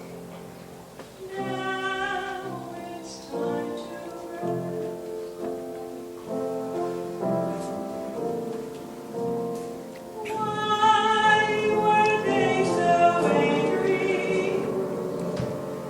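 Sung choral music from a sacred cantata: several voices holding sustained notes over instrumental accompaniment, growing louder about ten seconds in.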